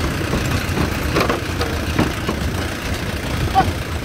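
A truck's engine runs while the truck bumps along a rutted dirt track, with irregular knocks and rattles from the body and a short sharp sound near the end.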